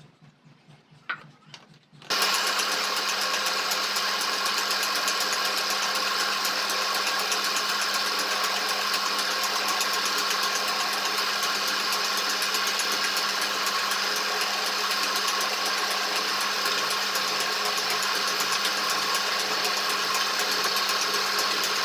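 An electric power tool switching on about two seconds in and then running steadily at constant speed with a steady whine.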